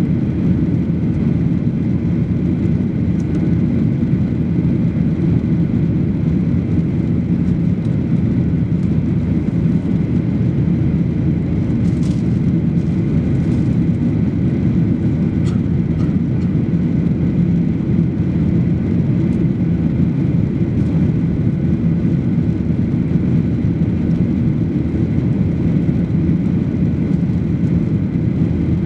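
Steady cabin noise of a Boeing 737-800 in flight, heard inside the cabin over the wing: the low, even rumble of its CFM56-7B engines and rushing airflow. A few faint clicks come near the middle.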